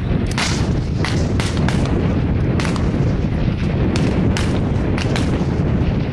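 Rifle shots from a line of high-power match rifles firing at the 600-yard line: about ten sharp reports, irregularly spaced, over a steady low rumble.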